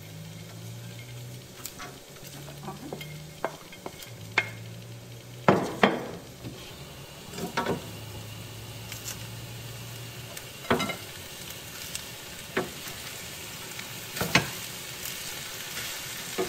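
Stir-fry of purple rice noodles, chicken and bean sprouts sizzling in a stainless steel pan while being stirred and tossed with a wooden spatula. A steady sizzle with irregular scrapes and knocks of the spatula against the pan, the loudest about five and a half seconds in.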